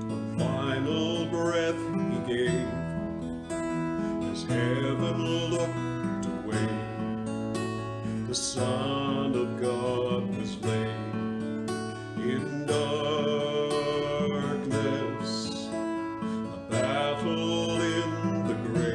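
A man singing a worship song in phrases while strumming chords on an acoustic guitar.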